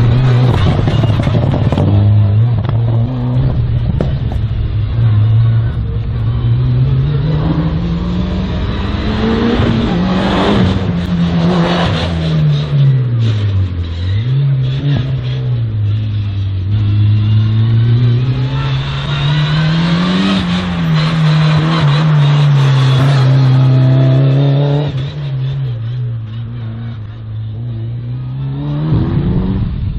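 A race car's engine driven hard through a slalom course, its note climbing under acceleration and dropping for braking and gear changes, with high points about a third and two thirds of the way through. It fades somewhat near the end.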